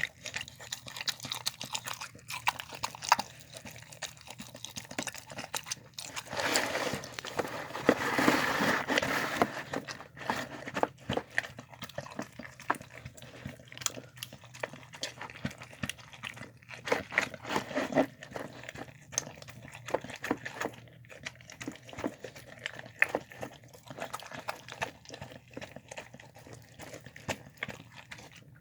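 A dog eating a wet meal of chicken, apple, white beans and rice, with chewing, crunching and many quick clicks of teeth. A louder, noisier stretch of eating comes about seven to ten seconds in.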